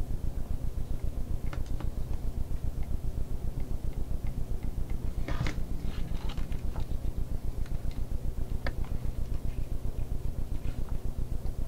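Faint small crackles and ticks from soldering the jumper pads on a DSO138 oscilloscope kit board, with a ragged burst of crackling about halfway through. Under them runs a steady low hum that throbs rapidly.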